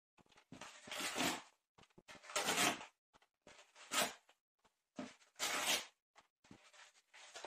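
A handful of short rustling or scraping noises, each about half a second long, spaced a second or so apart.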